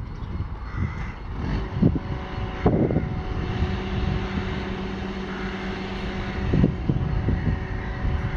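Freight wagons of a sand train running away along the track, a steady rumble, with gusts of wind buffeting the microphone.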